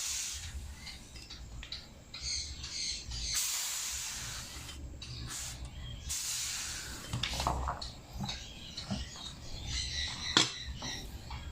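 Compressed air from a homemade refrigerator-compressor rig hissing out in bursts, the two longest about three and a half and six seconds in, with a sharp click near the end.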